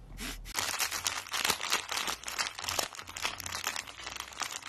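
Plastic wrapper of a Lotus Speculoos biscuit packet being crinkled in the hand, a rapid run of crackles that starts about half a second in.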